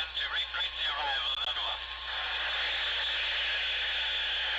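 Old-time radio sound effect: a thin, tinny broadcast voice for about the first two seconds, then steady static hiss.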